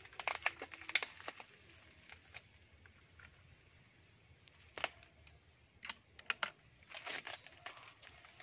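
Crinkling and sharp clicking of bubble wrap and packing tape around a plastic fish bag being handled and cut open with scissors, in short clusters with quiet gaps between.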